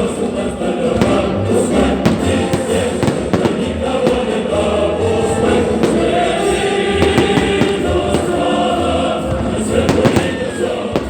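Choral music with singing, overlaid by repeated firework bangs and crackles.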